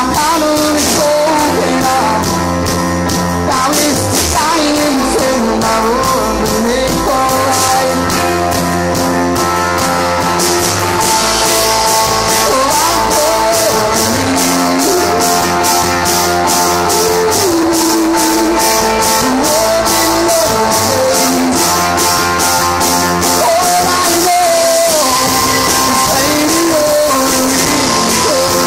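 Live rock band playing a song: a male lead voice singing over keyboard, electric bass, guitar and drums. The cymbals keep a steady beat that comes to the fore about a third of the way in. It is recorded on a phone, so the sound is rough.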